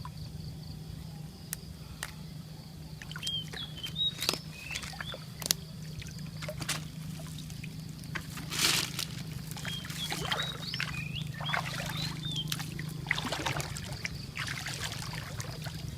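Water sloshing, pouring and trickling in irregular splashes, with short high chirping calls and a steady low hum underneath.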